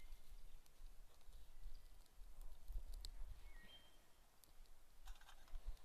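Faint, scattered clicks and small snaps of dry twigs being handled and laid onto a fire platform.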